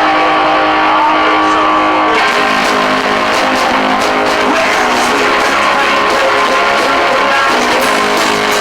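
Blues-rock song intro led by guitar, with held notes at first. About two seconds in, more instruments come in with a steady run of sharp hits.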